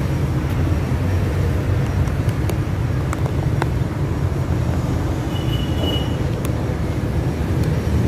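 Steady low background rumble, with a few faint light clicks of metal timing-chain parts being handled as a chain guide is fitted. A brief faint high tone sounds a little past the middle.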